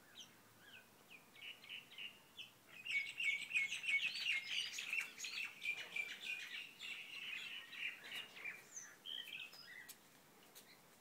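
Small birds chirping: a few scattered chirps, then a long run of rapid, high twittering from about three seconds in, thinning back to single calls near the end.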